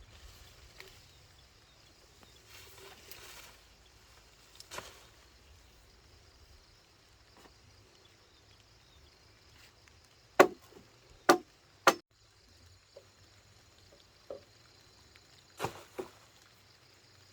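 Sharp knocks, like chopping or striking: three loud ones close together about ten seconds in, then a few more near the end, over a quiet outdoor background.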